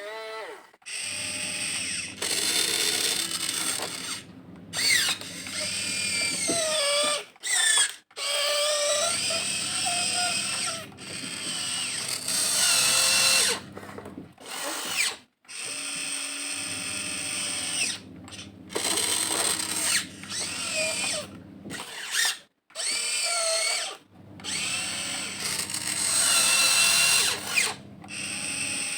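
Huina 1592 RC excavator's electric motors and gear trains whining through repeated stop-start moves, each run lasting a second to a few seconds with short silent gaps between. The whine's pitch glides up and down within the runs.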